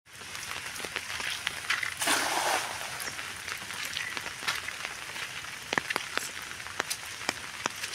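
Rain falling on open water, with many sharp ticks of drops. About two seconds in, a thrown cast net lands on the water with a brief splashing hiss.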